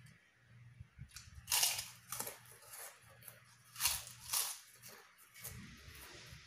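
Crisp kerupuk putih (white cracker) crunching as it is broken and bitten. There are a few sharp crunches: the loudest about a second and a half in and again around four seconds in, with quieter chewing between them.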